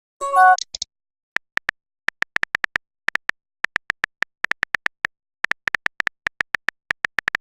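Phone keyboard key-press clicks: many short identical beeps in an irregular typing rhythm, with a brief chime of falling notes about half a second in.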